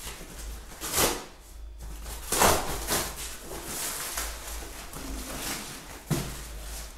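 Rustling and scraping of a woven plastic sack being opened by hand, in uneven bursts, with a short knock about six seconds in.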